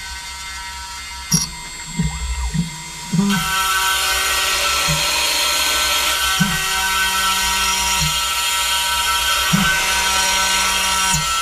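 CNC milling spindle running with a steady high whine, with short motor whirs from the machine's axis moves; about three seconds in the cutter bites into the carbon fiber plate and a loud, rough cutting noise sets in and continues.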